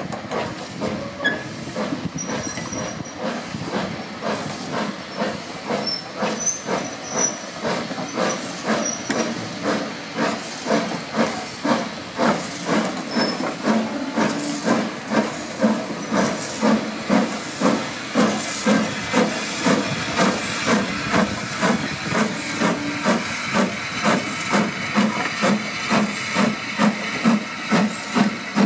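Small saddle-tank steam locomotive working a train of coaches, its exhaust chuffing in a steady beat that grows louder and more distinct through the second half as the engine comes close, reaching about two beats a second, with steam hissing.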